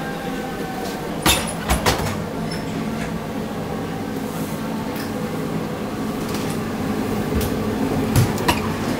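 Steady machine hum of a kitchen, with a few sharp knocks and clicks as toasts are handled onto a ridged contact grill: a cluster about a second in and another near the end.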